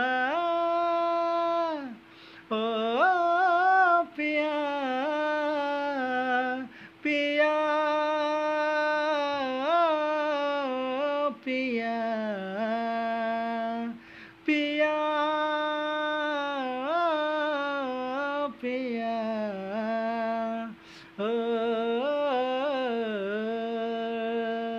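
A man singing a wordless melody in phrases of a few seconds each, with short breaks for breath, over a steady low tone that holds underneath.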